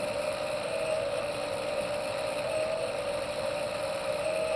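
The motor of a motorized fire tornado rig running, a steady whine with a slight waver in pitch, over an even rushing noise.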